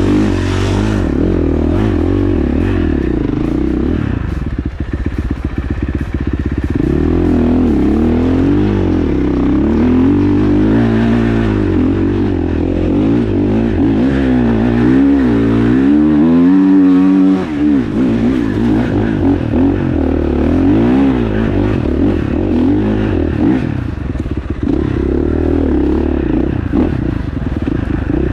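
KTM 450 SXF single-cylinder four-stroke motocross engine being ridden, the throttle opened and closed again and again so the revs keep rising and falling, with one higher rev run about two-thirds of the way in.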